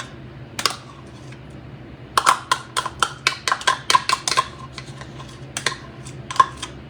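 A spoon clinking against a dish while mayonnaise is scooped and knocked off it. There are a few single clicks, then a quick run of about five a second from about two seconds in, each with a short ring.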